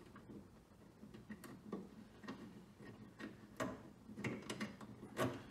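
Hands working a wiring loom along a car's underbody, giving irregular light clicks and taps, with a few louder knocks near the end.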